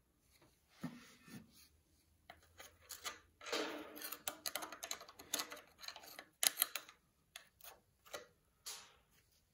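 Screwdriver scraping and picking old oil sludge out from around the rocker arms and valve springs of a Volkswagen Beetle's air-cooled flat-four cylinder head: irregular metal-on-metal scrapes and clicks, busiest in the middle.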